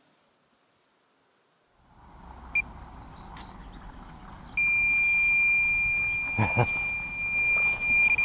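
Electronic carp bite alarm gives one short beep, then sounds one continuous high tone from about four and a half seconds in: a fast run, line being pulled off the reel by a hooked fish. Wind rumbles on the microphone underneath, with a couple of knocks about six and a half seconds in.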